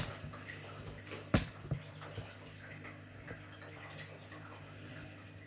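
Darts striking a dartboard: three sharp knocks, the loudest at the start, another about a second and a half later and a lighter one just after it, over a faint steady low hum.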